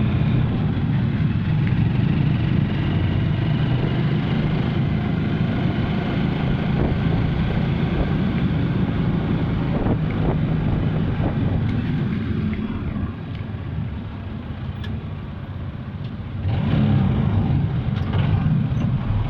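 Steady low rumble of a motor vehicle running. It drops quieter for a few seconds past the middle, then comes back up.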